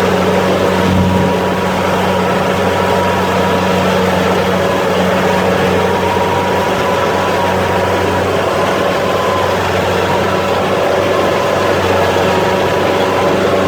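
Rice combine harvester running steadily, heard from aboard the machine: a loud, even engine hum with a steady higher whine over it.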